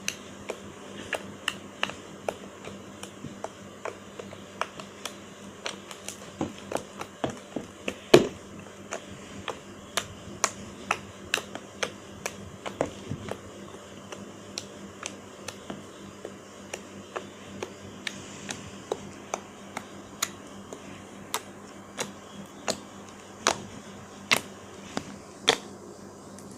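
Fingers poking and pressing into a soft slime, giving a string of sharp clicks and pops, roughly one or two a second.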